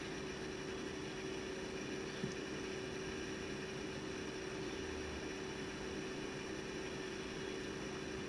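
Steady room tone: an even hiss with a constant low hum, and one faint click about two seconds in.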